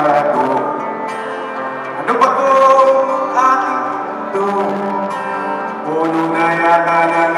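Live solo song: a man singing to his own acoustic guitar, heard through an arena's sound system.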